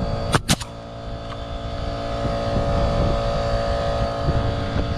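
Air compressor motor running steadily, growing louder over the first couple of seconds, while a pneumatic nail gun fires two sharp shots in quick succession just after the start, nailing down roll roofing.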